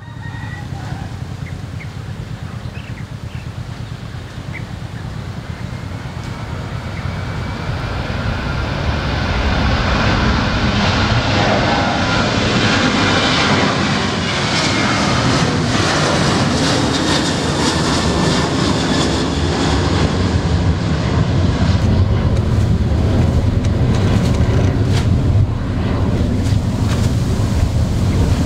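Jet airliner's engines, a loud rushing noise with a faint whine, building up over the first several seconds and then holding steady, over a low rumble.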